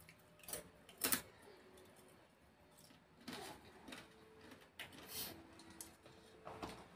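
A person eating by hand: chewing and mouth smacks, with fingers picking food from a plate, heard as a handful of short sharp sounds, the loudest about a second in.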